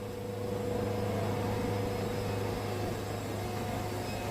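Wood-Mizer band sawmill running with a steady hum.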